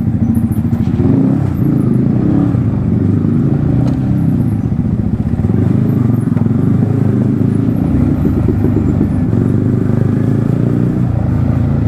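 Yamaha MT-15's single-cylinder engine with an Akrapovic exhaust, running steadily under way with small shifts in engine pitch.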